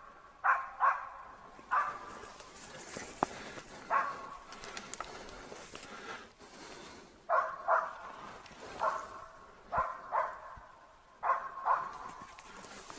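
A hunting laika barking repeatedly: about a dozen short, sharp barks, singly and in quick pairs, with a pause of a few seconds in the middle.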